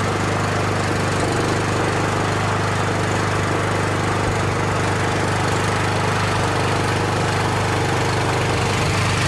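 Engine of a tracked mini excavator running steadily at a constant speed, with no change in pitch.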